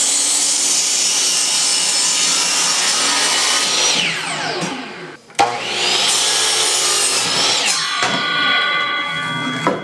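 Electric miter saw cutting wood boards, twice. Each time the motor's whine rises to speed and the blade goes through the wood. Between the two cuts the pitch falls as the blade spins down, and the second run ends in a steady whine of several tones.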